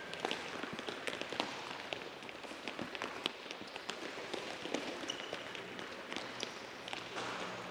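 Several soccer balls being dribbled at once on an indoor court floor: many short, irregular taps and thuds of feet striking the balls, mixed with running footsteps.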